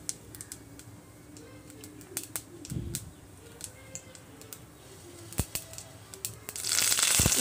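Mustard seeds popping in hot oil in a stainless steel kadai: scattered sharp clicks. Near the end a loud sizzle breaks out as curry leaves go into the oil.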